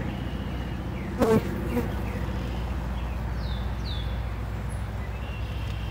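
Many honeybees buzzing in a steady drone around a nuc being transferred into an open hive.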